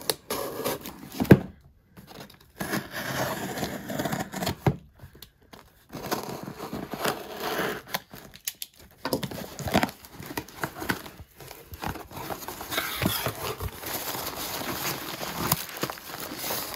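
Cardboard box being cut open with a utility knife and pulled apart: irregular rustling and tearing of cardboard and paper, with sharp clicks and a loud click about a second in. Near the end, hands rummage through foam packing peanuts.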